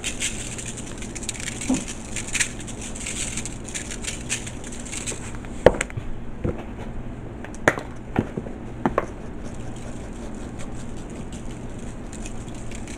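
Kitchen handling noise at a foil-lined baking pan. A crackling rustle runs for about the first five seconds, then come a few separate knocks and taps, over a low steady hum.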